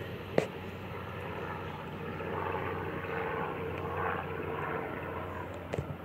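Metro-North electric multiple-unit commuter train pulling away from the platform with a steady hum of motors and wheels. A sharp click comes about half a second in, and a smaller one near the end.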